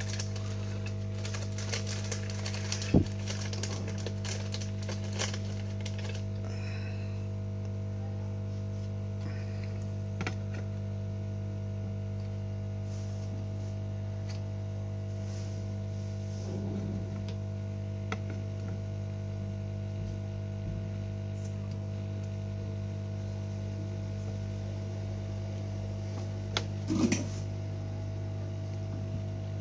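Steady electrical mains hum on a repair bench, with scattered light clicks and taps from handling a circuit board in its holder; a sharper knock comes about three seconds in and a few more knocks near the end.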